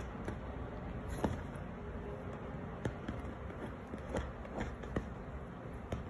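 Scattered light taps and creaks from a small Yorkshire terrier stepping and pawing about on a leather couch.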